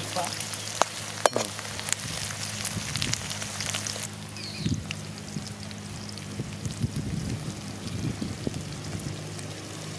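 Onions and green chillies sizzling and crackling in hot oil in an aluminium kadai, with a few sharp clicks of a metal slotted spoon against the pan in the first second or two. The sizzle grows thinner about four seconds in.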